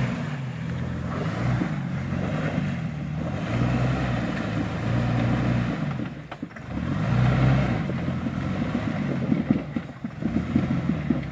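Jeep Wrangler engine working under load as it crawls over rocks, revving up and easing off in repeated swells with a brief dip about six seconds in. Irregular knocks and crunches from the tyres on rock come near the end.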